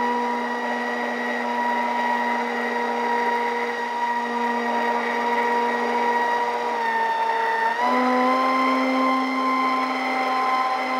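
Twin electric motors and propellers of an RC model plane whining steadily in flight, heard from on board. The pitch sags a little, then steps up about eight seconds in.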